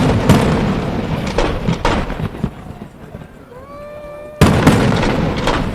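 Fireworks shells bursting overhead: a loud boom at the start and another about four seconds in, with crackling and lesser pops between them. A short rising whistle-like tone comes just before the second boom.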